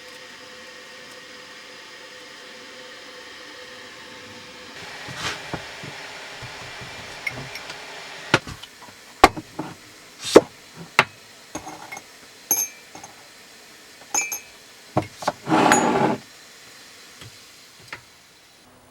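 A steady hum for the first few seconds, then kitchenware being handled: irregular knocks and sharp clinks, some ringing like glass or metal, with a short noisy scrape near the end.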